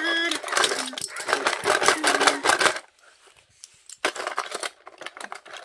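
Rapid clatter of small toy cars being dropped and jostled into the hard plastic dump bed of a toy dump truck, lasting about three seconds, then again briefly about four seconds in.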